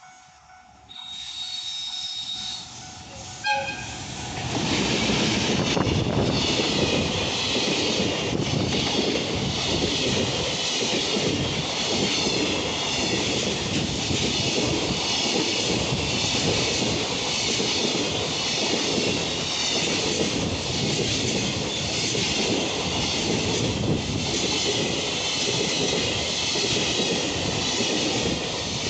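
A JR Freight EF210 electric locomotive sounds a short horn blast about three and a half seconds in. Its freight train then passes over the level crossing: a steady loud rumble of wagons with rhythmic wheel clatter over the rail joints.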